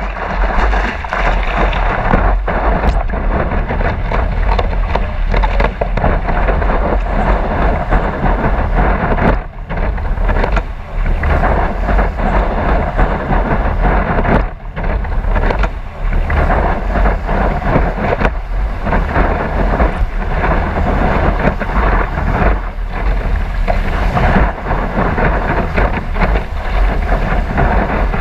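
Loud, continuous rush of water spray and wind buffeting a camera mounted on the deck of a stand-up paddleboard as it rides a wave, with a few brief dips.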